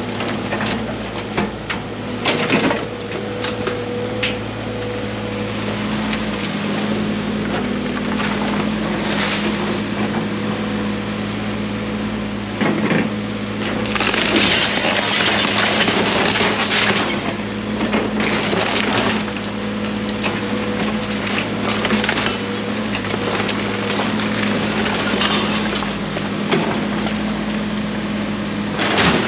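Tracked excavator's diesel engine running steadily while its bucket tears into an old wooden house frame: timber cracking, splintering and crashing down in irregular bursts, loudest about 14 to 17 seconds in.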